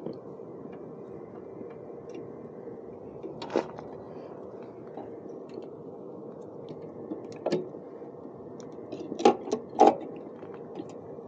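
Plastic clicks and knocks of red Anderson battery connectors and wiring being handled, with two sharper clacks about nine and ten seconds in, over a steady background hum.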